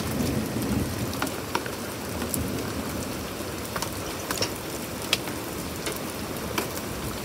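Nickel- to grape-size hail and rain pouring down onto a wooden deck and patio furniture: a steady hiss of rain with scattered sharp clicks of single hailstones striking.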